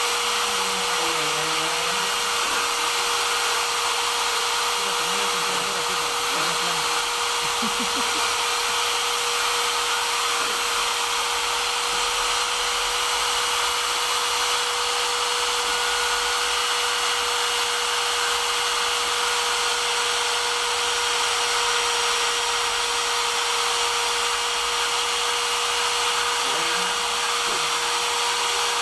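CNC router spindle running steadily, a constant whine over a wide hiss, on its first test run cutting letters.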